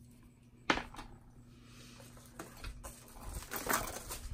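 A glass nail polish bottle set down with a sharp knock on a glass work mat about a second in, followed by a few lighter taps. Near the end, plastic crinkles as a mailer bag is moved.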